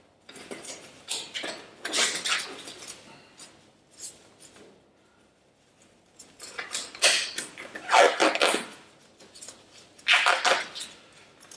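Disposable examination gloves being pulled onto the hands, rustling and stretching in several short bursts with a pause about halfway through.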